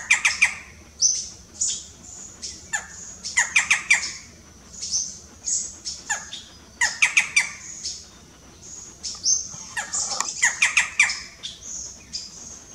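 Barred forest-falcon calling: bursts of several harsh, rapid notes every second or two, with thin, high, falling whistles between the bursts.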